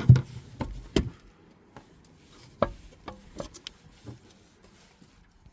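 Scattered sharp clicks and knocks as the jack kit is turned clockwise and tightened down into its holder. The strongest fall at the very start, about a second in and about two and a half seconds in, with quieter taps between.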